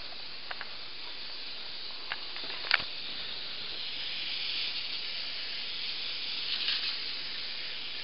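K'nex roller coaster train rolling along its plastic rod track: a steady hiss with a few light clicks, the sharpest about three seconds in.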